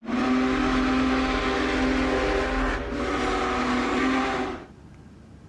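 A locomotive's multi-chime air horn sounding a chord in two blasts, a long one and a shorter one, with a brief break between them, then stopping.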